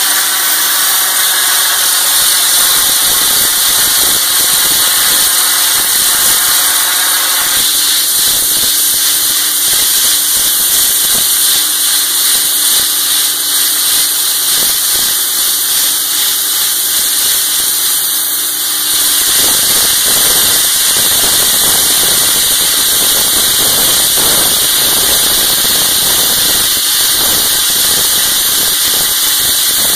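Wet abrasive slurry blasting: a loud, steady hiss from the blast stream over a running engine's hum. The engine's higher tones drop away about a quarter of the way in. About two-thirds of the way in, the low hum gives way to a rougher crackling noise.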